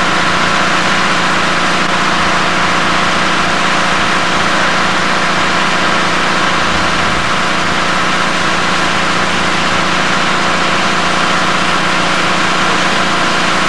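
An engine idling steadily, a constant drone with an even hiss over it.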